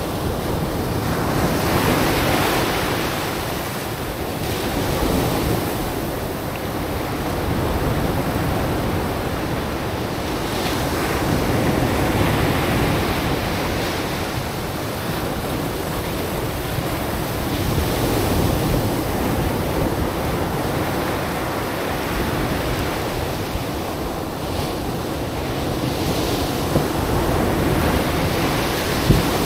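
Surf breaking and washing up a black sand beach among stranded chunks of glacier ice, swelling and easing every few seconds, with wind buffeting the microphone.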